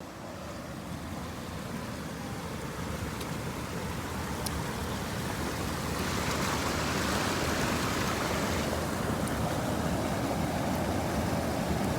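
Steady rush of falling water from a waterfall, growing gradually louder over the first several seconds.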